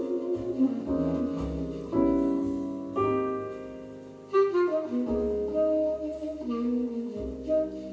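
Instrumental music from an FM radio broadcast, a sustained melody line over lower accompaniment, played at low volume through a Sansui TU-999 tuner, AU-777A amplifier and loudspeakers.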